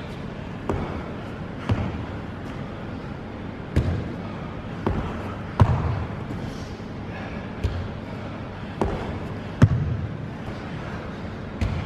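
Feet in trainers stepping up onto a padded box and landing back on a wooden floor in repeated box step-ups. The thuds come every one to two seconds, with a steady hiss underneath.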